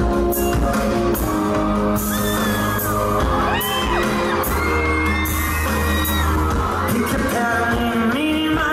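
Live pop concert music heard from the crowd: singing over the band, with loud hits on an electronic drum pad struck with sticks. High screams from the fans rise and fall over the middle of it.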